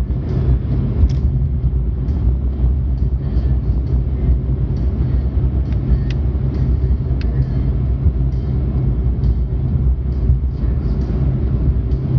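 Steady low rumble of a moving car heard from inside the cabin: engine and tyre noise on the road, with a few faint clicks.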